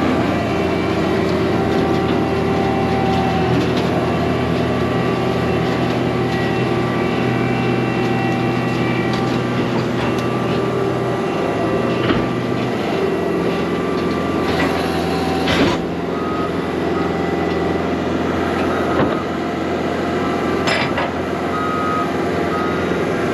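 Heavy machinery engine running steadily, with a few sharp knocks. A reversing alarm beeps in the last several seconds.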